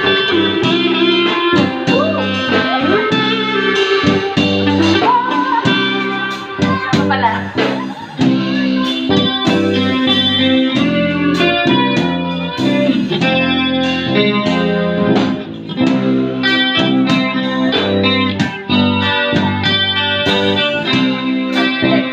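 Live rock band playing an instrumental break: an electric guitar lead with bent, gliding notes over bass guitar and a steady drum-kit beat.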